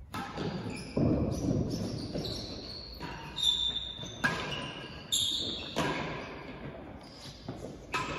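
Real tennis rally in an echoing walled court: the solid ball is struck by racquets and rebounds off the floor and walls. About ten sharp knocks, irregularly spaced, each ringing on in the hall.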